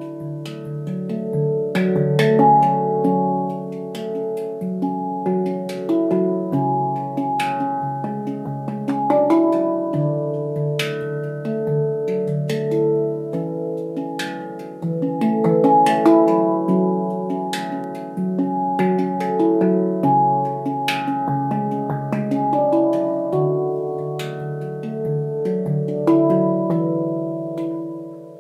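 Handpan from Leaf Sound Sculpture, tuned to C# Locrian, played with the fingers: a continuous run of struck steel notes, each ringing on and overlapping the next. The playing fades down near the end.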